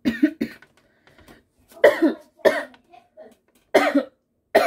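A boy coughing repeatedly: a quick run of coughs at the start, then single coughs every second or so.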